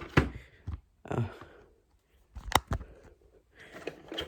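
A cardboard CPU box and its packaging being handled and opened, with a few scattered knocks and rustles and one sharp click about two and a half seconds in.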